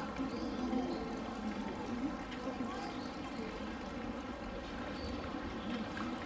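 Indistinct chatter of zoo visitors over steadily running water.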